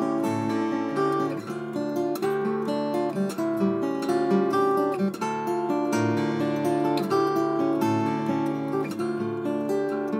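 Kent Everett L Series custom acoustic guitar, with Brazilian rosewood back and sides and a western cedar top, played fingerstyle: a continuous flow of plucked notes ringing over one another above sustained bass notes.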